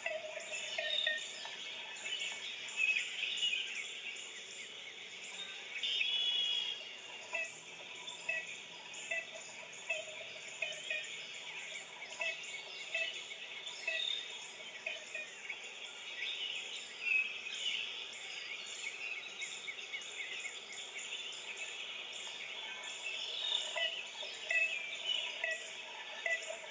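A dense chorus of many birds calling and chirping, with short calls overlapping throughout, over a steady high insect chorus. It is a recorded nature soundscape of birds and insects.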